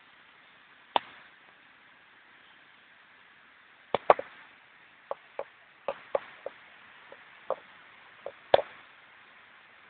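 Irregular sharp taps and knocks: a single one about a second in, then about a dozen more, unevenly spaced, from about four seconds in to near the end.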